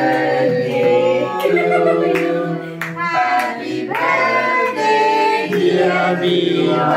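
A group of voices singing a birthday song together around the cake, with held notes that change every second or so. A few hand claps are mixed in.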